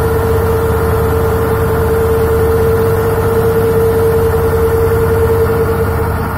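Boat engine running steadily: a low, evenly pulsing rumble with a steady whine over it that fades near the end.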